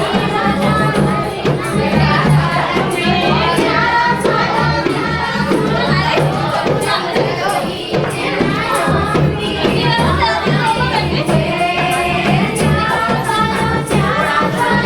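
Hindi folk song: singing over instrumental backing with a steady percussive beat.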